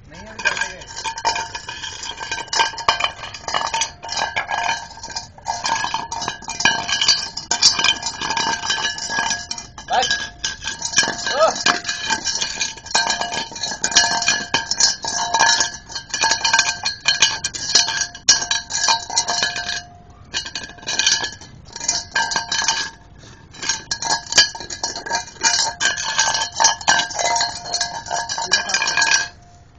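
A Labrador licking a stainless steel food bowl and shoving it over a concrete floor, the bowl clanking and ringing over and over. It pauses briefly about 20 seconds in and stops abruptly near the end.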